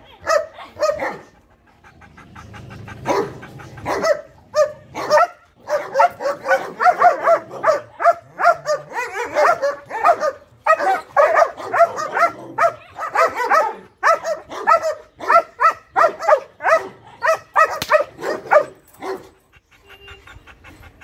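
A dog barking over and over in quick runs, a few barks a second, with brief pauses; the barking stops about two seconds before the end.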